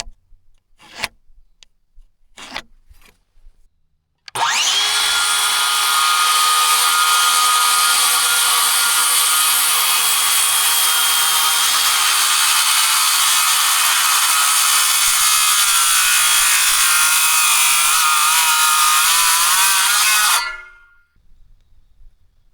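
A power saw cutting through wood: it starts suddenly a few seconds in, its whine rising briefly as it comes up to speed, and runs steadily for about sixteen seconds before stopping near the end. A few light clicks come before it.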